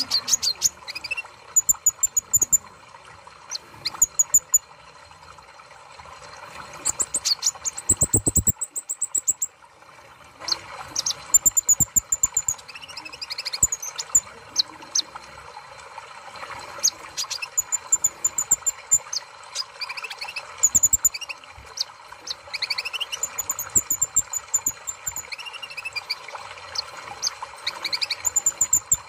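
Van Hasselt's sunbird (kolibri ninja) song: rapid high, thin chirps and short trills repeated again and again, with a quick run of clicks about eight seconds in, over a steady background hiss.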